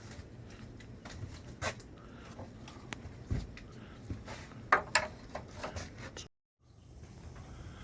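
Scattered small clicks and knocks over a low steady background hum, with a brief total dropout about six seconds in.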